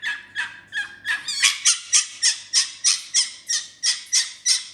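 Fennec fox calling in a fast, even run of short, sharp yips, about five a second, getting louder about a second in.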